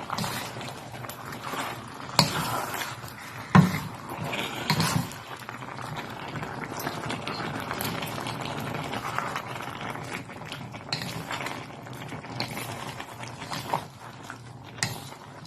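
Chicken pieces sizzling and bubbling in their own juices in a pot over high heat, a steady frying hiss, with a few sharp knocks about two, three and a half and five seconds in.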